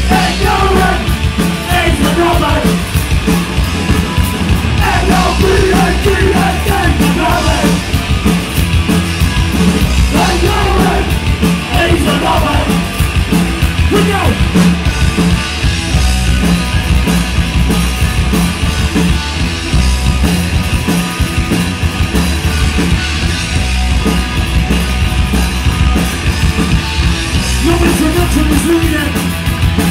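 Punk rock band playing a song live, loud and steady, with shouted vocals over the first half.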